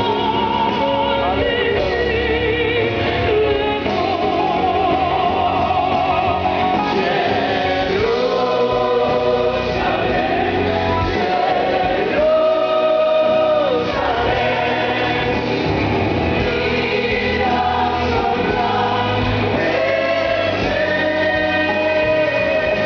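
Church choir singing in harmony, many voices with long held notes.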